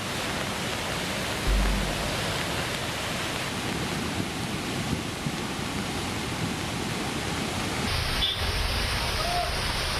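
Steady rushing noise of water, with a low thump about one and a half seconds in. Near the end the sound changes and loses its highest hiss.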